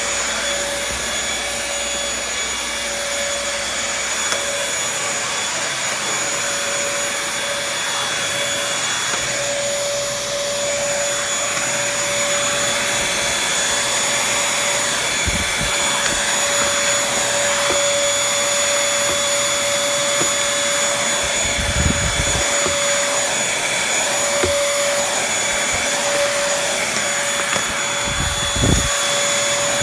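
Vacuum cleaner running steadily, a constant whine over its rushing air, with a few low thumps about halfway through, around two-thirds of the way in and near the end.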